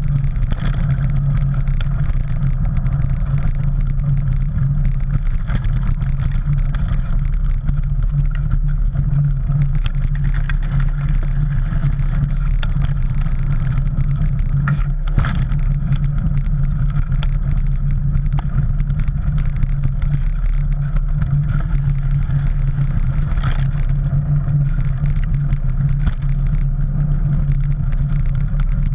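Steady low rumble of wind and trail vibration on a handlebar-mounted camera as a mountain bike rolls down a dirt singletrack over leaf litter. A single sharp knock comes about halfway through.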